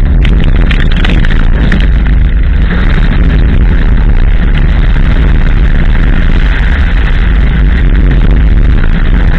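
Abarth 500 at speed on a loose gravel stage, heard from outside the car beside the door mirror: a loud, steady rumble of tyres on gravel, wind buffeting on the microphone and the engine underneath, with sharp clicks of stones striking the body, most of them in the first couple of seconds.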